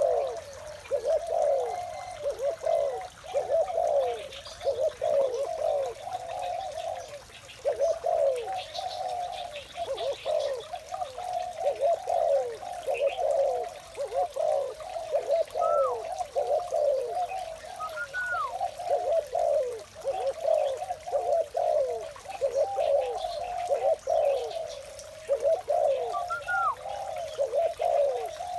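Spotted doves cooing, coo after coo with hardly a gap and the calls overlapping, with now and then a higher note that rises and falls back.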